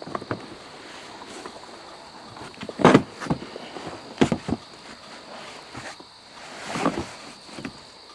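Footsteps scuffing and rustling over the ground, with a few louder scuffs about three, four and seven seconds in, over a steady high insect drone.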